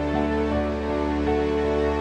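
Background music with long held notes and slow chord changes.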